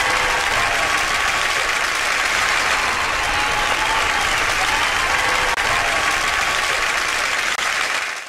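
Sustained applause from a crowd, with faint voices in it, fading out near the end.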